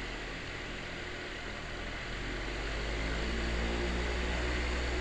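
Electric fan running, freshly lubricated: a steady rush of air over a low motor hum, getting gradually louder from about halfway through.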